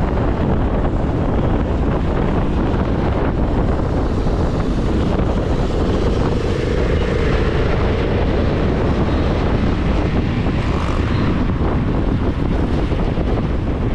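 Steady running noise of a moving vehicle, engine and road rumble, with wind buffeting the microphone.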